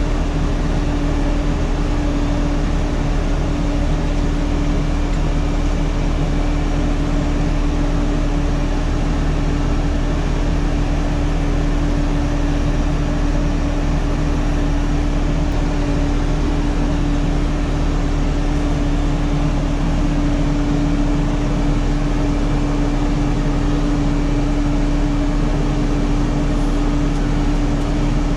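Steady machine drone with a strong, unchanging low hum, running at a constant speed.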